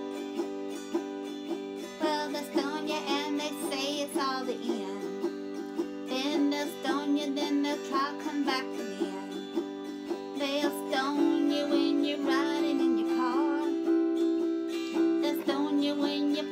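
Autoharp strummed in a steady rhythm, chord bars held down so the chords ring on between strokes. A wavering high melody line comes and goes above it several times.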